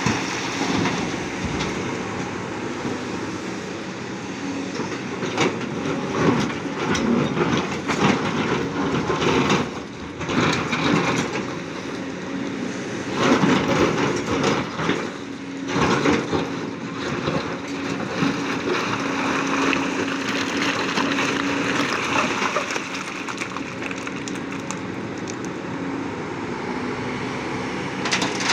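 Large mining excavator working: its engine runs steadily under load while rock knocks, cracks and clatters in irregular bursts.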